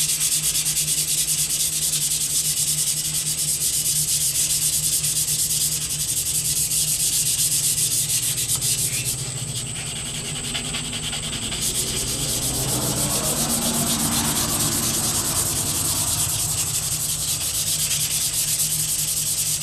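150-grit sandpaper rubbed back and forth by hand along a steel wakizashi blade. It makes a steady, even scraping made of quick strokes, the sword being smoothed to a uniform scratch pattern.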